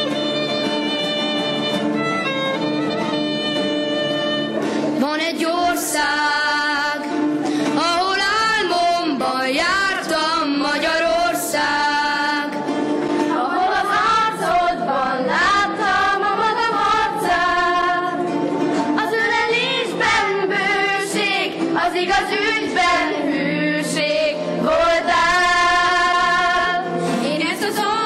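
A violin playing a melody over guitar accompaniment, giving way about five seconds in to a group of children, mainly girls, singing a patriotic song together.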